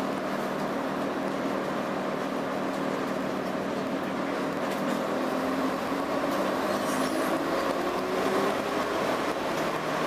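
Interior of an AEC Regal IV RF-class bus on the move: its underfloor diesel engine runs steadily under the road and body noise. A whine rises in pitch from about six to nine seconds in as the bus picks up speed.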